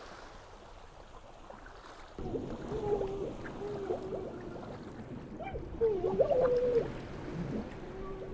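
Underwater water sound: a muffled low rumble with bubbling and gurgling that starts suddenly about two seconds in, with wavering, sliding tones over it.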